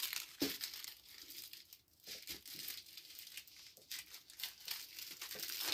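Small clear plastic bags of diamond-painting drills crinkling as they are handled, in irregular crackles.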